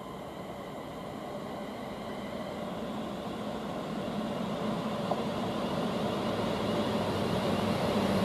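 Class 350 Desiro electric multiple unit approaching along the platform line: steady running noise of the train on the rails, growing steadily louder as it nears, with faint steady high tones over it.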